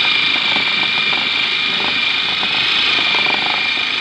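Electric food processor motor running at speed with a steady high whine, its blade chopping raw chicken meat into mince in the bowl, with a light rattle from the chunks.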